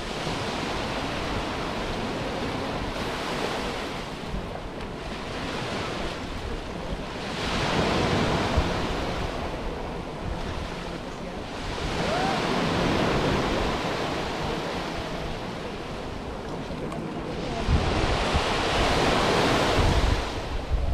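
Surf from small waves breaking and washing up a sandy beach, swelling three times, about 8, 12 and 18 seconds in. Wind buffets the microphone as a low rumble, strongest near the end.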